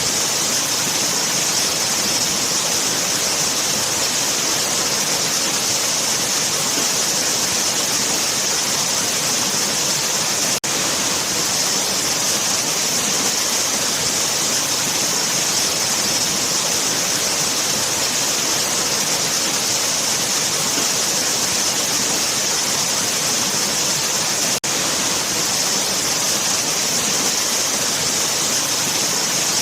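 Waterfall: a steady, even rush of falling water, strongest in the hiss, with two momentary dips in level, about ten and twenty-five seconds in.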